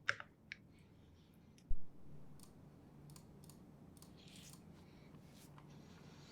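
A few faint, scattered clicks at a computer desk, with one dull low thump a little under two seconds in, over a steady low background hum.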